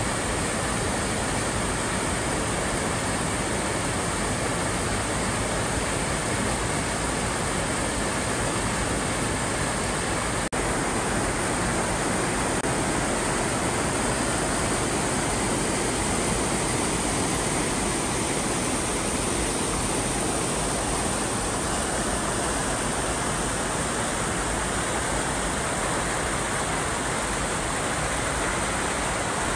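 Storm-swollen creek in flood, fast muddy water rushing and churning in a steady, unbroken rush.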